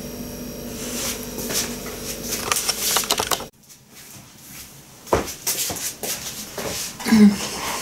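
Scattered light clicks and knocks of objects being handled on a table, over a faint steady hum that cuts off abruptly about three and a half seconds in. More handling clicks follow, with a brief murmur near the end.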